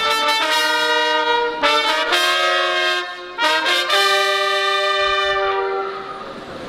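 Three trumpets and a slide trombone playing together in held chords, with two short breaks, ending on a long held chord that dies away near the end.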